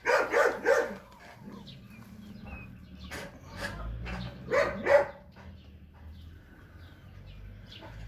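Dog barking in short runs: three quick barks at the start, a couple more about three seconds in, and two loud barks about four and a half seconds in, over a faint low hum.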